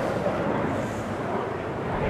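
Steady rushing jet noise from Blue Impulse Kawasaki T-4 jet trainers' turbofan engines as they fly past overhead.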